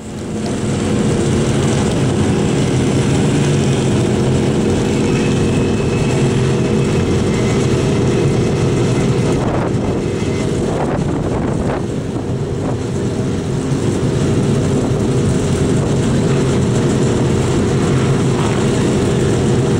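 Firenza Can Am rally car's 302 small-block Chevrolet V8 running at a loud, steady idle.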